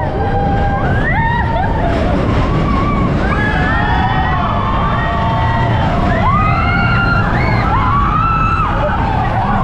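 Expedition Everest roller coaster train rumbling along the track through its dark section, with riders screaming and whooping, many overlapping rising and falling cries.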